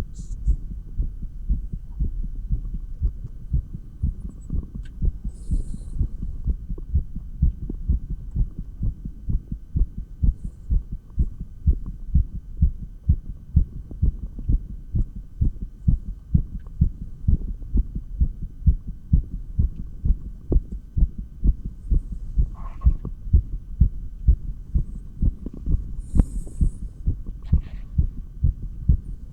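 Human heartbeat heard through a stethoscope: quick, regular lub-dub thumps at about two beats a second, the heart rate raised by dumbbell exercise. A few brief, faint scratchy noises come and go.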